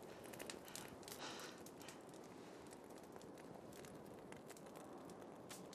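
Near silence: faint ambience with a few soft ticks in the first couple of seconds.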